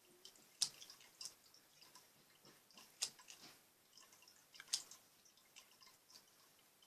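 Slime air bubbles popping as the slime is worked: sharp little wet pops, three louder ones among many fainter crackles.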